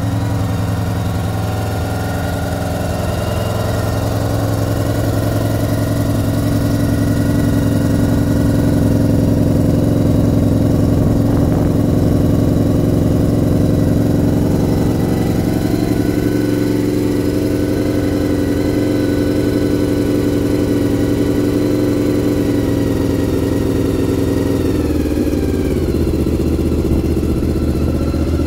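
Honda VFR750F's V4 engine idling steadily through a Delkevic aftermarket silencer, still cold and running on full choke. Near the end the revs drop and the engine settles to a lower idle.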